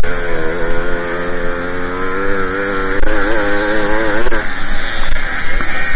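Small two-stroke moped engine running hard on a dirt track. Its buzzing pitch wavers up and down as the throttle is worked, rising about three seconds in and dropping away a little after four seconds.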